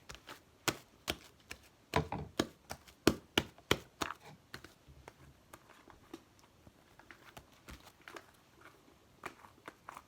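A large batch of glue-based homemade slime being kneaded and stretched by hand, making irregular sticky clicks, snaps and pops. They come thick and fast for the first four seconds or so, then thin out to occasional snaps.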